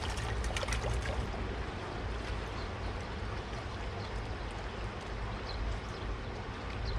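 Steady rush of river water flowing and lapping against concrete tetrapod blocks, under a low rumble, with a few light ticks of splashing in the first second.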